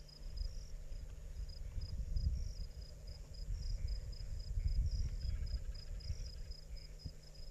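Crickets chirping, a steady train of short high chirps about three a second, over a low rumble with a steady hum.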